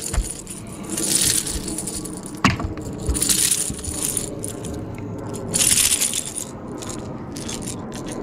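A rattling lipless crankbait (Strike King Red Eye Shad) and its treble hooks clattering in a landed bass's mouth as the fish shakes and is unhooked by hand. There are three short rattling bursts and one sharp knock about two and a half seconds in.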